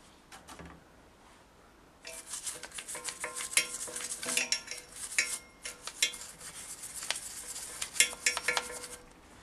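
Metal tools and parts clinking, rattling and scraping together as they are handled, from about two seconds in until near the end.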